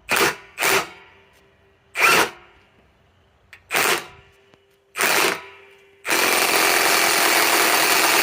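Milwaukee M18 Fuel Gen 3 high-torque impact wrench tightening a nut. It gives five short trigger bursts, then from about six seconds in runs continuously at full power, impacting the nut tight.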